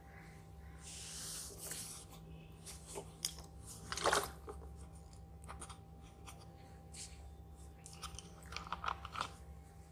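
Thin plastic water bottle crinkling and crackling in the hands as its screw cap is twisted open, with the sharpest crackle about four seconds in and another run of small crackles and clicks near the end.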